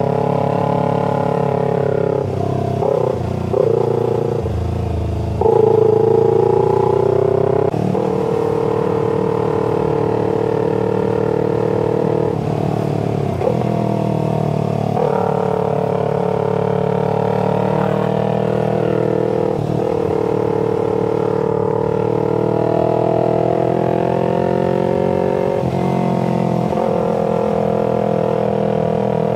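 Parallel-twin sport motorcycle engine running under way, its pitch shifting up and down every few seconds as the throttle is opened and closed through curves. It is louder for a few seconds about five seconds in.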